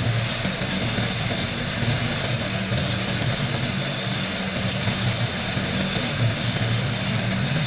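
Steady hiss of a sandblaster blasting frame parts with compressed air and grit, with a low hum underneath.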